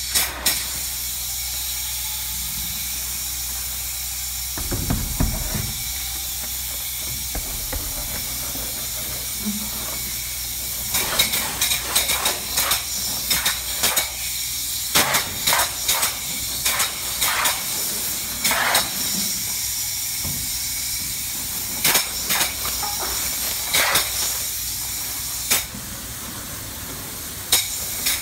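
Spray foam gun hissing steadily as it applies open-cell spray foam insulation, with many short, sharp bursts of spray from about eleven seconds on as the trigger is worked in quick passes.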